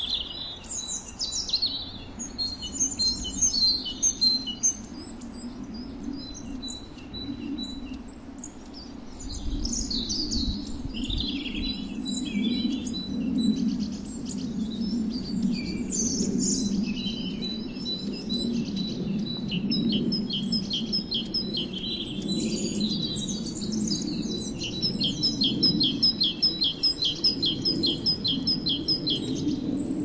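Small wild songbirds chirping and calling: many short high notes, with a quick run of evenly repeated notes, about four a second, near the end.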